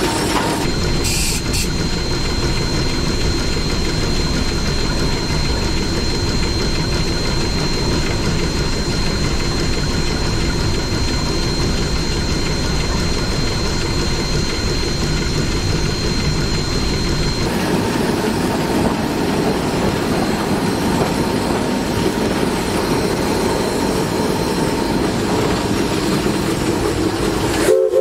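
Steam locomotive running along the track, heard from a camera held outside the cab window: a steady, loud rumble of the engine, running gear and rails.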